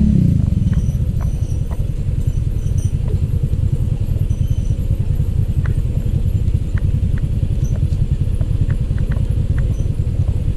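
Motorcycle engine running steadily in a low gear while riding over a rough track, with scattered faint clicks and rattles.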